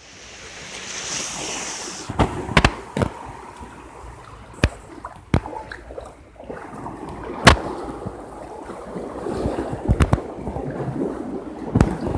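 Sea waves washing and rushing, with about eight sharp knocks at irregular intervals.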